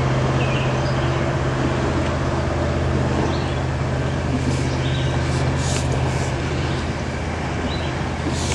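A steady low hum with hiss, with a few short, soft scratchy swishes of a Copic alcohol marker's nib stroking across card stock, about halfway through and again near the end.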